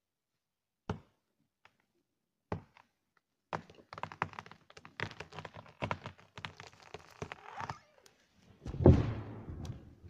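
A felled conifer going over. Two sharp knocks at the felling cut come first. Then a run of wood cracking and branches snapping as the tree tips, and near the end a heavy thud, the loudest sound, as the trunk hits the ground.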